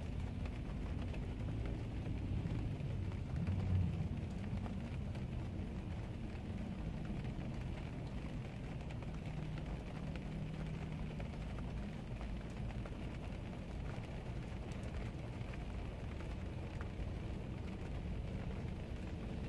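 Steady low rumble of a vehicle with a light hiss over it, swelling briefly about four seconds in.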